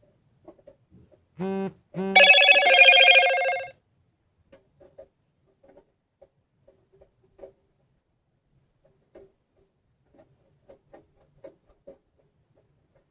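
Light scattered clicks and taps of titanium stove panels and rods being handled during assembly. About a second and a half in, a short steady pitched tone sounds, then a louder, brighter one lasting about a second and a half that fades at its end.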